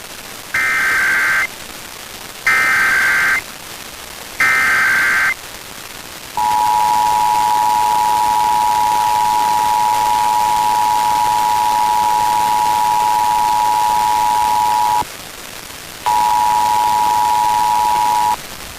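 Emergency Alert System test signal received over the radio with static hiss: three one-second bursts of screechy SAME header data tones about two seconds apart, then the two-tone attention signal held for about eight and a half seconds. It breaks off for about a second, then sounds again for about two seconds.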